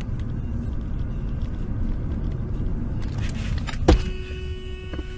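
Steady low rumble of a car's road and engine noise heard from inside the cabin. About four seconds in comes a sharp knock, followed by a held steady tone.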